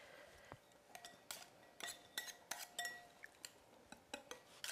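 Wire whisk and spoon clicking and scraping against a glass mixing bowl while a thick vinegared chili-paste sauce is stirred. The taps are light and irregular.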